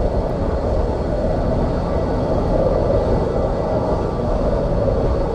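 Boeing 727-200F's three Pratt & Whitney JT8D-17R turbofans running steadily, a broad drone with a faint high whine, heard from behind the aircraft. Strong wind buffets the microphone with a rough low rumble throughout.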